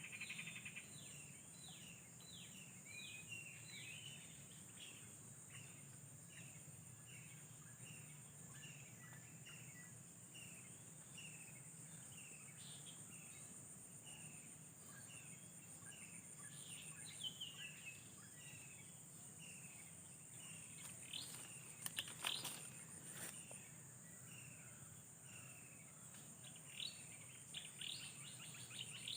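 Faint outdoor ambience: a steady high-pitched insect drone, with short falling bird chirps repeating about once or twice a second. A few sharp clicks come about two-thirds of the way through.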